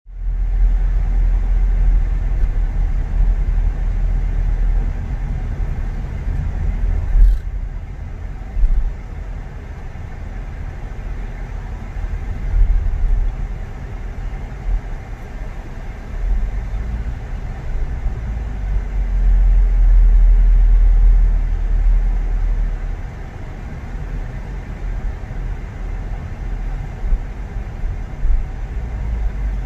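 A car driving, with a steady low rumble of engine and road noise that swells and eases. There is a brief sharp knock about seven seconds in.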